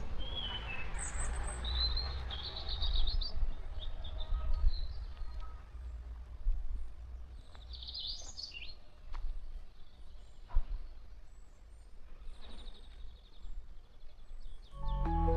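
Small birds chirping and singing in short bursts over a low outdoor rumble. Music begins right at the end.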